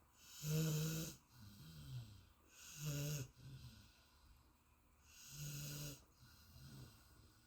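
Golden retriever snoring in deep sleep: three loud, low buzzing snores about two and a half seconds apart, with softer wheezy breaths between them.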